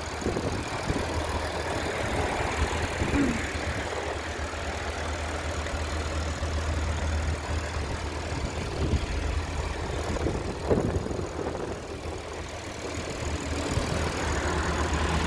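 A 2019 Cadillac XT5's 3.6-litre V6 idling steadily, purring like a kitten.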